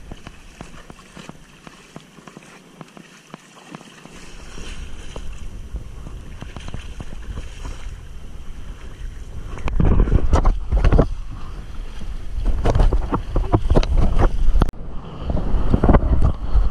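Wind rumbling and buffeting on an action camera's microphone while kitesurfing over water, louder and gustier from about ten seconds in.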